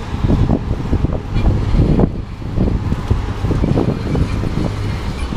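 Open-sided parking-lot tram running along the pavement, heard from a seat on board: a steady low rumble of the tractor unit and tyres with irregular knocks and rattles from the cars.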